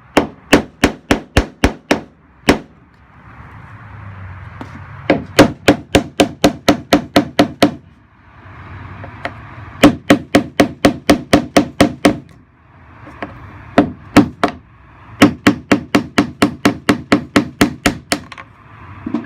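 Hammer blows on an old chisel, metal on metal, driving a collapsed brass thru-hull fitting out through a boat's hull. The strikes come in four rapid runs of about four a second, with short pauses between.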